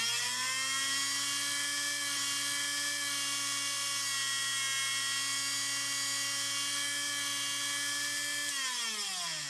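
A small high-speed motor whining at a steady pitch, then winding down, its pitch falling over the last second.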